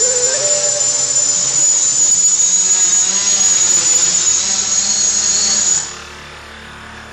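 Gaui 330XS quadcopter's electric motors and propellers running with a loud, steady high-pitched whine. The whine stops abruptly about six seconds in, leaving only a low hum.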